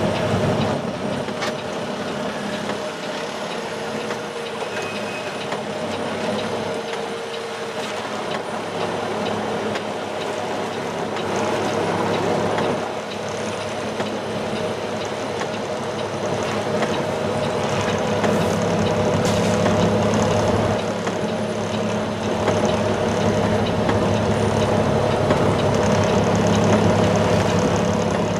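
Cummins diesel engine of a Peterbilt semi truck running steadily at low speed, heard from inside the cab.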